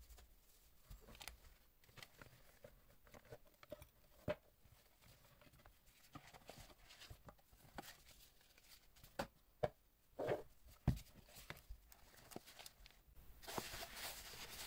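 Faint handling sounds of a cardboard watch box being opened by gloved hands: scattered soft taps and knocks, a few sharper around the middle, and a rustle near the end as the watch on its cushion is lifted out.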